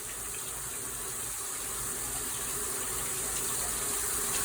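Water gushing and spraying from a burst hot water heater: a steady hiss that grows slowly louder.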